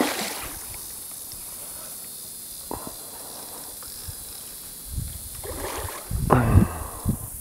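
Hooked common carp thrashing and splashing at the surface close to the bank. There is a splash right at the start and a longer bout of splashing between about five and seven seconds in.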